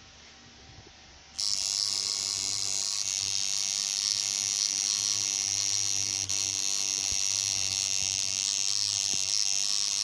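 Tattoo machine buzzing steadily as it runs on the skin. It starts abruptly about a second and a half in, drops out for an instant around six seconds, and runs on to the end.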